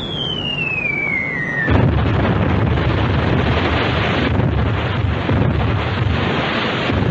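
Film sound effect of an incoming shell salvo: a whistle falling steadily in pitch, then, just under two seconds in, a sudden loud roar with a heavy rumble as the pocket battleship's first salvo lands. The roar holds steady for about five seconds and drops away near the end.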